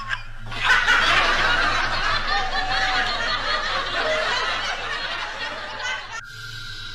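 Canned laughter: many people laughing at once, cut off abruptly about six seconds in.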